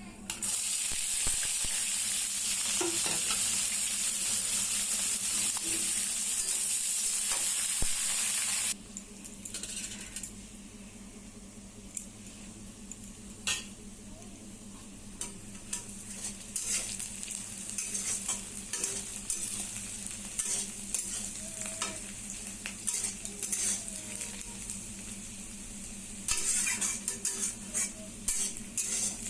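Food frying in a hot pan, with loud sizzling that cuts off sharply after about eight seconds. Quieter frying follows while a spoon scrapes and taps against the pan as the food is stirred, and a second loud burst of sizzling comes near the end.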